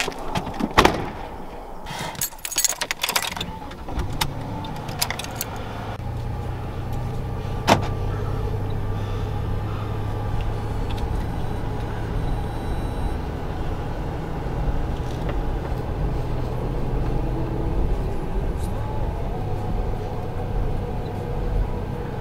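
Car doors shutting and keys rattling, then from about four seconds in a car engine runs with a steady low hum as the SUV drives, heard from inside the cabin. One sharp knock sounds near eight seconds in.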